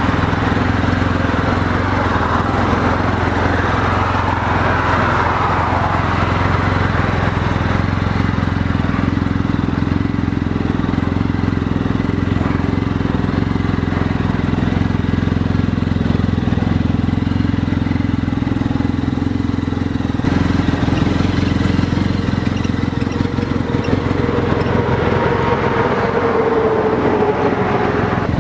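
The 2015 Arctic Cat Trail XT's engine idling steadily.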